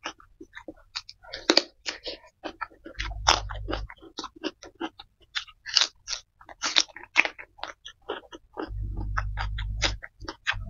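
Close-miked chewing and crunching of young jengkol (dog fruit) dipped in sambal: a rapid, uneven run of wet crunches and mouth clicks. A low hum cuts in briefly twice.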